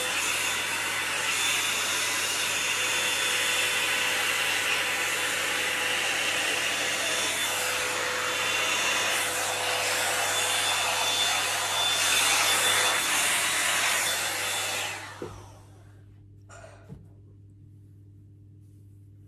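Toni & Guy volumiser hot-air brush running steadily as it blow-dries long hair, then switched off about fifteen seconds in, its fan winding down over about a second. A couple of faint clicks follow.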